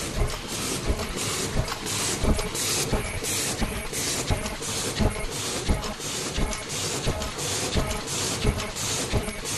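Automatic paper cup making machine running at speed: a steady rhythmic clatter of its mechanism, with clicks and a short hiss repeating at an even pace.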